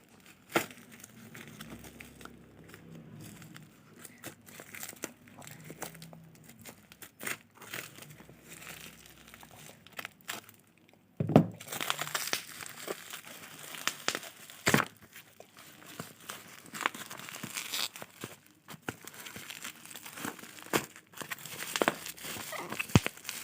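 Headlamp packaging being opened and handled: crinkling and tearing of wrapping, with sharp clicks and knocks. It is sparse at first and turns busier and louder about halfway through.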